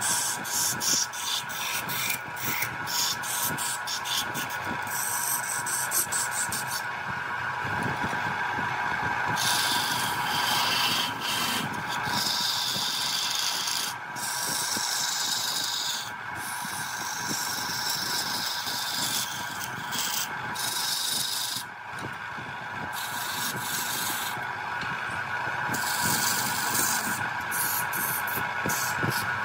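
Wood lathe spinning a large wood blank with a steady motor hum and whine while a turning tool cuts it, the scraping hiss of the cut and spraying shavings coming in stretches with short pauses.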